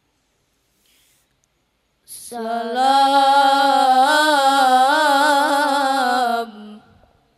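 A boy reciting the Qur'an in the melodic tilawah style, amplified through a microphone: after about two seconds of silence, one long held note with wavering ornaments lasting about four seconds, ending in a short echo.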